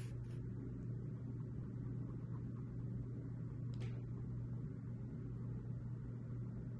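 Quiet room tone: a steady low hum, with a faint click about four seconds in.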